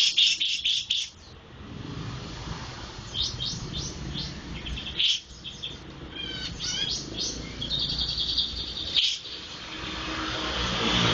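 A songbird, the 'jenggot' bird, singing in groups of short, high chirps with brief pauses, including a quick run of falling notes and a held trill.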